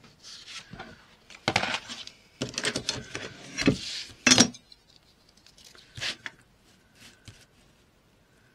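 Crafting tools and paper handled on a desk: paper rustling, a cutting mat set down and a metal ruler laid across it, with a run of clatters and clinks, loudest about four seconds in, followed by a few soft taps.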